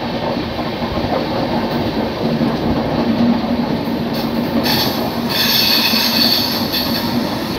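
Express train running at speed: a steady rumble of the wheels on the rails with a low hum. A high-pitched squeal of the wheels on the rails comes in about halfway through and stops shortly before the end.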